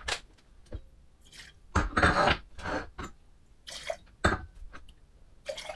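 Liquid poured from small wine glasses into a large wine glass in several short pours, with sharp clinks and knocks of the glasses being picked up and set down on a table.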